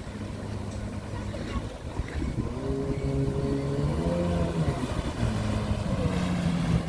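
Jet ski engine running as the craft approaches, growing louder, with its pitch rising briefly near the middle. Wind and water wash run underneath.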